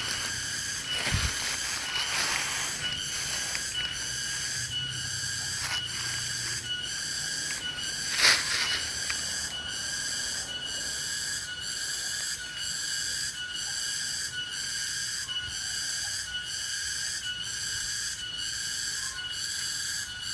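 Insect chorus, pulsing steadily a little more than once a second. Dry bamboo leaves crunch near the start, and there is one sharp click about eight seconds in.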